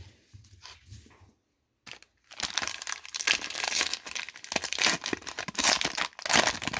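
Foil wrapper of a trading card pack crinkling as it is handled, loud and crackling, starting about two seconds in after a quiet start.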